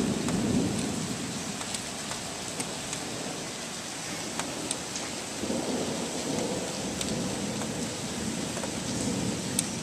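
Thunder rumbling over steady heavy rain, with scattered drips and patters close by. One rumble swells right at the start and fades, and a longer one rolls in about halfway through and dies away near the end.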